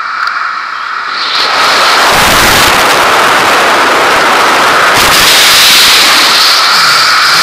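Wind rushing over the microphone of a wingsuit flyer's camera in flight. It swells about a second and a half in to a loud, steady roar with a faint whistle in it as airspeed builds.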